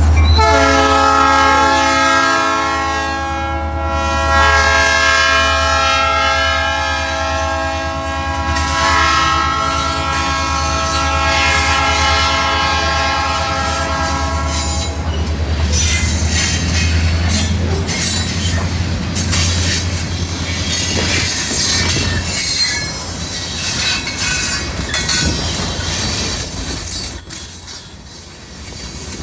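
Diesel freight locomotive's air horn held in one long blast for about fifteen seconds over the low rumble of the engine. Then the horn stops and the loaded rock cars roll past with wheels clattering over rail joints and squealing.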